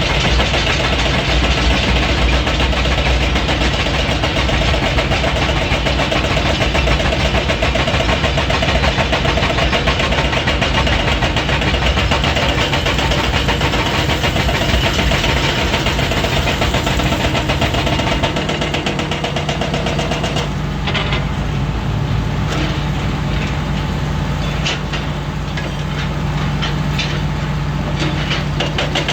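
Diesel engine of a Komatsu PC400 hydraulic excavator running hard under working load. About twenty seconds in, the engine note drops to a steadier, lower hum, with scattered knocks over it.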